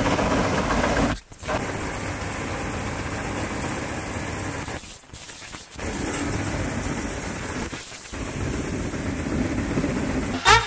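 Bizon Super Z058 combine harvester running under load while cutting rapeseed: a steady din of diesel engine and harvesting machinery. It drops out briefly about a second in, around five seconds in and about eight seconds in.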